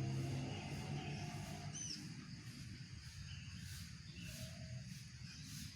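Small wild birds chirping in a tree: short high chirps and a quick up-and-down call, scattered and faint. A louder low sound at the start fades out over the first second or two.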